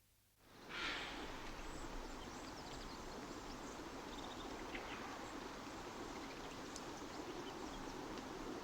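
Outdoor ambience fading in from silence about half a second in: a steady rush of background noise with a few faint, short bird chirps.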